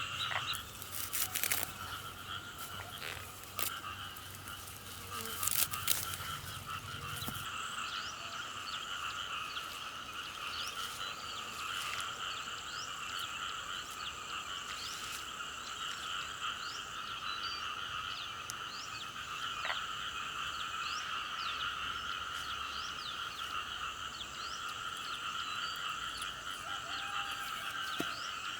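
A dense, unbroken chorus of frogs calling. A few sharp knocks or rustles come in the first few seconds.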